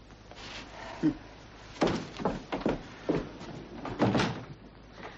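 A panelled wooden door opened and shut, among a string of short knocks and thuds over a few seconds.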